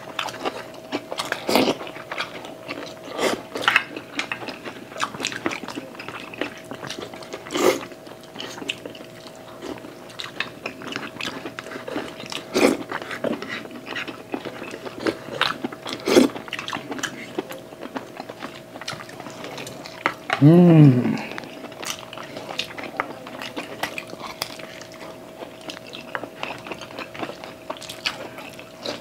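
Close-up eating sounds: wet chewing, lip smacking and sharp mouth clicks every few seconds as chicken adobo and pork spare ribs are eaten by hand. Twenty seconds in there is one short, falling "mm" hum.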